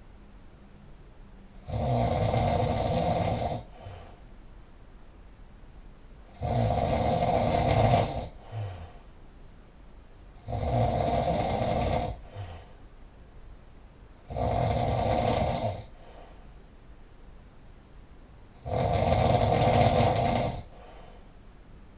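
A sleeping person snoring loudly in a steady rhythm: five long snores, each about two seconds, coming about every four seconds with quieter breathing gaps between them.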